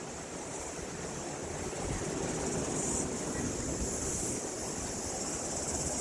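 Surf breaking on a sandy beach: a steady rush of waves that grows a little louder about two seconds in, with a steady high hiss above it.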